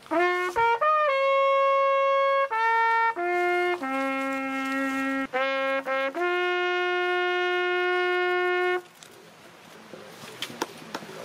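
A valveless brass bugle playing a call: a series of held notes with a few quick ones between, stepping up and down and ending on a long low note that stops about nine seconds in.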